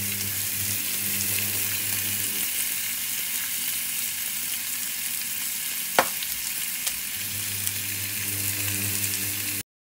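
Salt-and-pepper pork loin sizzling steadily in a small nonstick frying pan. A low hum comes and goes under the sizzle, and there is one sharp click about six seconds in.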